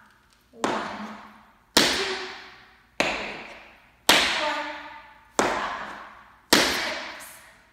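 Tap shoes doing heel steps on a wooden floor: six sharp taps about a second apart, each ringing briefly as it fades.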